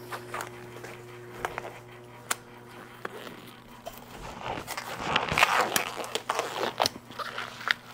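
Disposable gloves being pulled onto the hands: scattered snaps and clicks, with a busier stretch of crackly rustling about halfway through. A steady low hum runs underneath.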